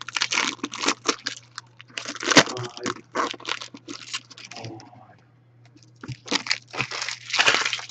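Plastic wrapping being crinkled and torn off a box of trading cards: a dense run of crackling and crunching, easing off briefly about five seconds in before picking up again.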